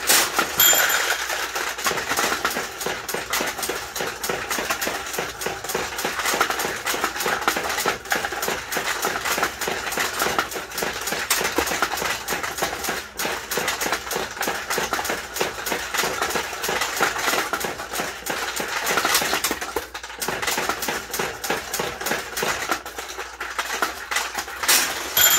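Purely mechanical pachinko machine in play: steel balls shot by the hand lever clatter down through the pins and into the tray in a continuous metallic rattle. Its bell rings briefly about a second in and again near the end, the sound of reward balls draining out into the ramp.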